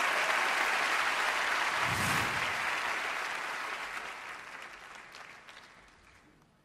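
Studio audience applauding, the clapping dying away over the last few seconds to near silence, with a brief low thud about two seconds in.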